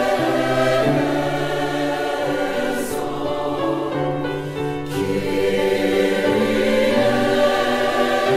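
Choir singing slow, held chords that change every second or so, dropping softer between about three and five seconds in, then swelling again.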